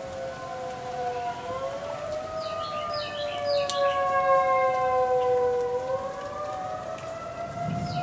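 Several outdoor warning sirens sounding at once, their overlapping tones slowly drifting up and down in pitch and swelling loudest around the middle. A few short bird chirps come in about two to four seconds in and again near the end.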